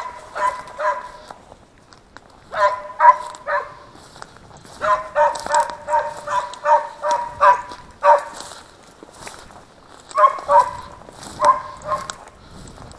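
A hunting dog barking in four bouts of quick, evenly pitched barks, the longest running about three seconds through the middle.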